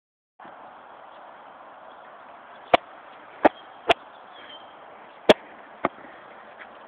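Five sharp knocks of a football being struck: three in quick succession about three seconds in and two more a little later, over a low steady background hiss.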